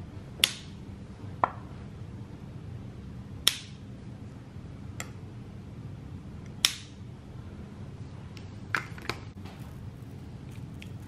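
Small scissors snipping a candle wick: about six sharp clicks at irregular spacing, over a low steady hum.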